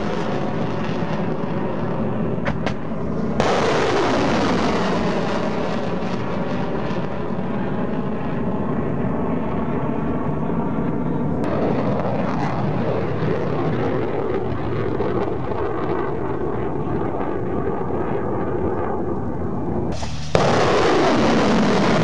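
Rocket motors of S-300PM2 Favorit surface-to-air missiles in flight after launch: a loud, continuous rushing noise whose pitch falls as each missile climbs away. It changes abruptly about three and a half, eleven and a half and twenty seconds in, where one launch is cut to the next.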